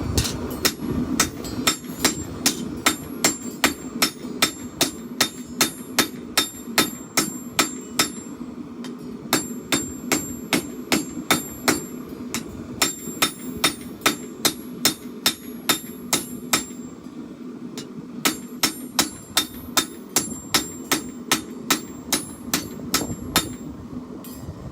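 Hand hammer striking hot steel on an anvil while a chopper blade is forged. The blows come in a quick, even rhythm of about two to three a second, in runs broken by short pauses about 8, 12 and 17 seconds in and near the end, over a steady low rumble.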